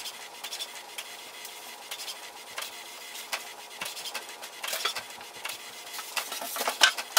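HP OfficeJet Pro 9135e inkjet printer printing its automatic print-head alignment page: a steady motor hum under many quick mechanical clicks and rubbing as the print head shuttles and the sheet feeds out, getting busier toward the end.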